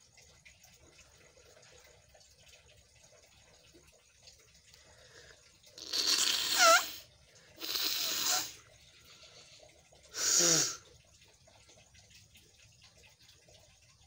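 A person forcing air hard out through the nose three times, each burst about a second long or less. The first and loudest carries a squeaky rising whistle, and the third ends in a falling nasal tone.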